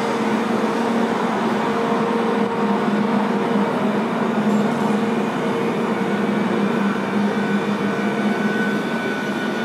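Steady mechanical drone with a constant low hum, unchanging throughout.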